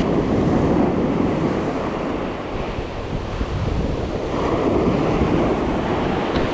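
Ocean surf washing on a beach, a steady rushing that swells and eases, with wind buffeting the microphone.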